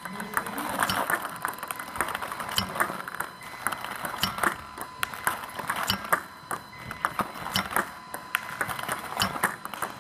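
Table tennis balls clicking in rapid, irregular succession: a ball machine feeding serves, balls bouncing on the table and struck back with a paddle. A faint steady whine sits underneath.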